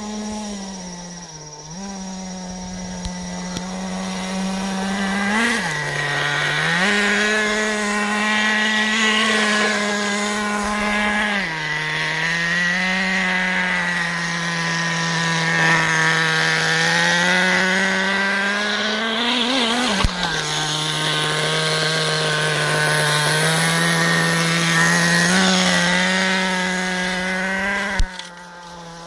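A radio-controlled buggy's small engine runs with a steady note that steps up and down as it is throttled, rising sharply twice. A sharp click comes about twenty seconds in, and another near the end.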